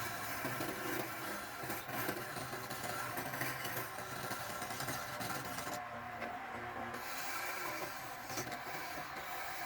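Wood being worked with a tool: a steady scraping and rubbing sound with a few short clicks.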